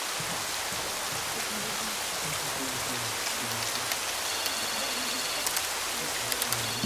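Steady rain falling, an even hiss with a few sharp drop clicks in the second half.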